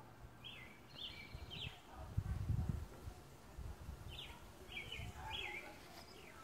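A songbird singing two short phrases of quick, high chirping notes a few seconds apart. A brief low rumble comes through in the middle, louder than the song.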